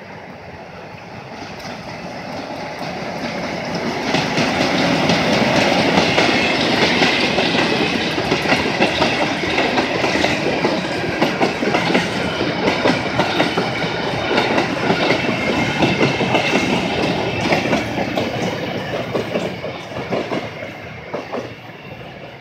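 Freight train passing close by: an ALCO RSD-16 diesel locomotive approaches and goes past, followed by a short string of grain wagons whose wheels clatter over the rail joints. The sound builds over the first few seconds, stays loud while the wagons roll past, and fades over the last few seconds as the train moves away.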